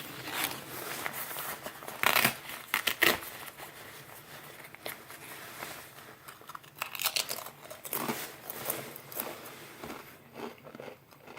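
Pringles BBQ potato crisps being bitten and chewed, crunching in irregular bursts.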